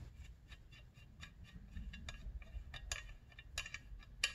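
Faint, light metallic clicks, several a second, of hand tools working a stuck nut on a crankcase cylinder stud held with locking pliers. A sharper click comes near the end.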